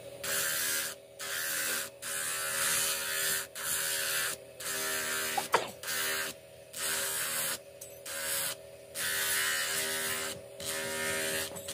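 Electric motor with a grinding disc on its shaft running steadily, as a wooden sickle handle is pressed against the spinning disc in repeated passes. Each contact is a harsh grinding hiss lasting about a second, starting and stopping about ten times. There is one sharp knock about halfway through.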